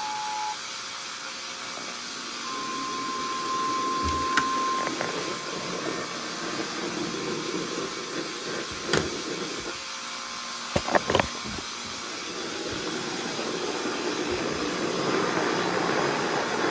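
Steady radio static from a weather-alert receiver between spoken messages. A two-tone alert beep cuts off just after the start, a single steady beep sounds for a couple of seconds a little later, and a few sharp clicks break through the hiss, the loudest pair about eleven seconds in.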